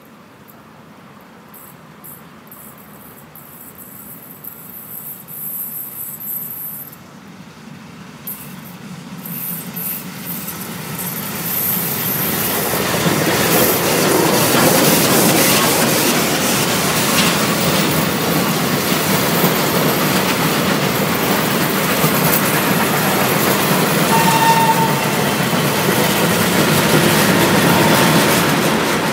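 Steam-hauled heritage train, an FS Gr 740 2-8-0 locomotive leading, approaching and passing close by. The sound builds for about twelve seconds, stays loud and steady as the carriages roll past, then starts to fade near the end.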